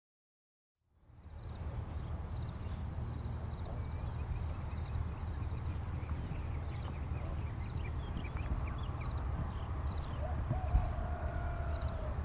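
Outdoor ambience fading in after about a second of silence: a steady chorus of insects, high-pitched and pulsing, over a low rumble. A single thump comes near the end, alongside a faint held tone that sinks slightly.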